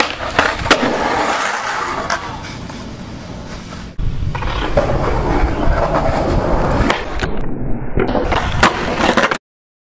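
Skateboard wheels rolling on pavement with sharp pops and clacks of the board, getting louder about four seconds in. It cuts off abruptly shortly before the end.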